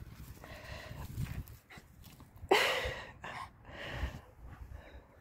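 A dog making several short sounds in a row; the loudest starts suddenly about two and a half seconds in.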